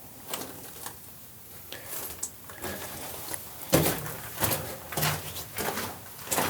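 Footsteps crunching on loose rock and gravel: a few faint steps at first, then louder, fairly regular steps about two a second from a little past the middle.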